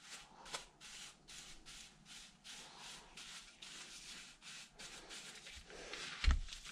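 Bristle paintbrush scrubbing rust and grime off a part of a three-jaw lathe chuck, in quick, regular brush strokes about three a second. One low thump near the end.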